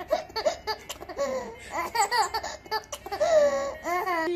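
A baby laughing in repeated short bursts of high squeals and giggles, with one longer drawn-out squeal about three seconds in.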